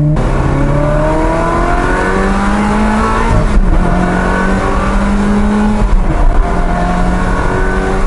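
Ferrari 360 Spider's mid-mounted V8 accelerating with the roof down. The revs climb, dip at an upshift about three and a half seconds in, climb again, and dip at a second upshift about six seconds in, then hold steady.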